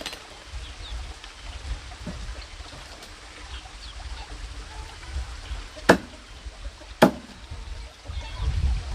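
Two sharp knocks a little over a second apart, over a steady low rumble.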